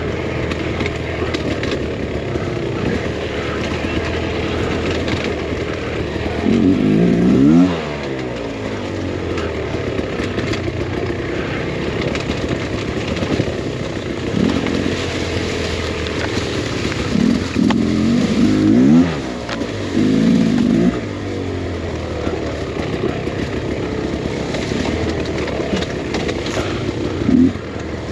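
A two-stroke dirt bike engine, a Beta Xtrainer 300, runs steadily on a rough trail. It has short bursts of throttle about a quarter of the way in, a cluster of revs around two-thirds through, and one brief rev near the end.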